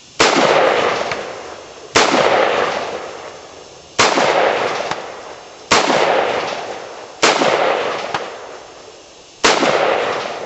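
Six single gunshots fired at a steady pace, roughly two seconds apart, each followed by a long echo that fades away.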